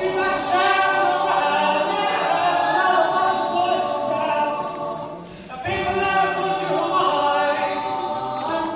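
All-male a cappella group singing in close harmony, with a short break in the voices about five and a half seconds in before they come back in.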